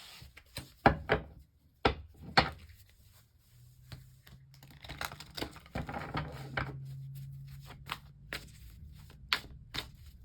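Tarot cards being handled: a series of sharp taps and clicks as cards are tapped and set down, with a stretch of rustling shuffling in the middle.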